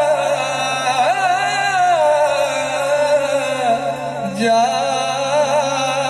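A man singing a Sufi song, holding long notes that waver and bend up and down in ornaments; one phrase ends about four seconds in and a new one begins.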